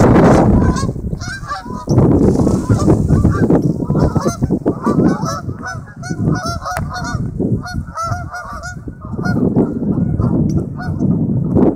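A flock of geese honking, with many short calls overlapping throughout. Under them runs a low rushing noise that is loudest at the start and swells again twice.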